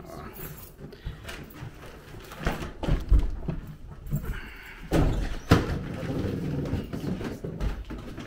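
Footsteps going down a carpeted indoor staircase: irregular dull thumps and knocks, with a sharper knock about five seconds in.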